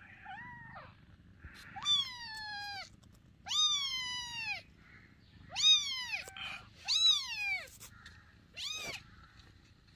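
Young kitten mewing: about six high-pitched calls, each rising then falling, spaced a second or so apart. The first is faint.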